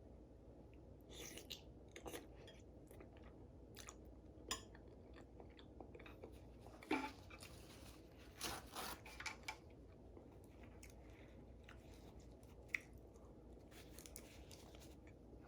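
A person chewing a mouthful of noodles close to the microphone: faint, irregular wet mouth clicks and smacks, with a few louder bursts about halfway through.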